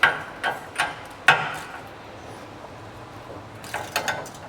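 Metal parts being set down and handled: several sharp clanks and clinks, the loudest about a second in, then a quick cluster of lighter clinks near the end.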